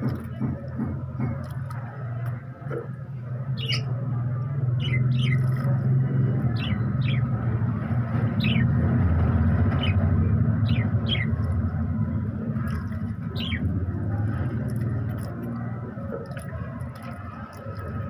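Budgerigars giving short, high chirps that sweep downward, about nine of them scattered through the middle, over a steady low rumble.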